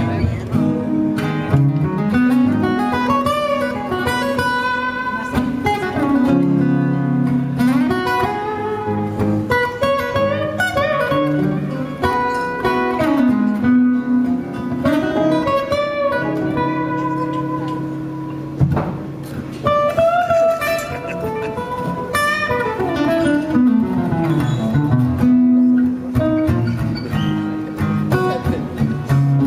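Acoustic guitars playing an instrumental break: a picked lead melody with slides over held lower notes. One sharp click sounds a little past the middle.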